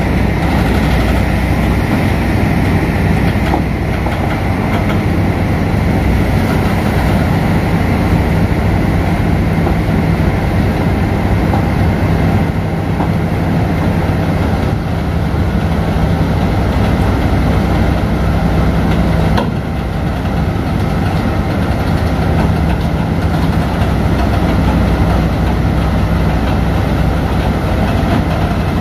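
Diesel power pack of a Cometto self-propelled modular transporter running steadily with a deep, even engine drone.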